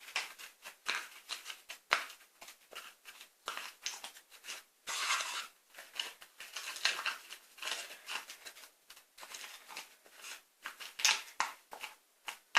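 Homemade slime being pulled and scraped out of its container by hand: a run of irregular sticky clicks, smacks and scraping rustles, with a few sharper clicks.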